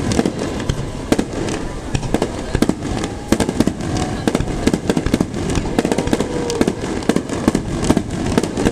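Star mine fireworks barrage: aerial shells fired and bursting in rapid, overlapping succession, a dense run of several bangs a second with no let-up.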